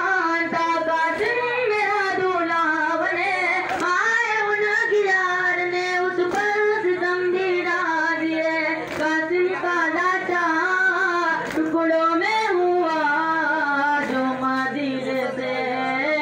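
A song with a lead voice singing a melody in long, wavering held notes over a steady low hum, with a couple of brief clicks.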